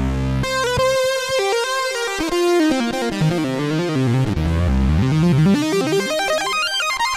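Korg Z1 MOSS physical-modelling synthesizer played live: quick runs of notes rising and falling, with deep bass notes near the start and again in the middle.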